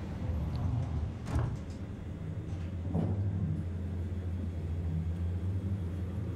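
Steady low hum of a lift cabin running between floors, with two soft knocks about one and three seconds in.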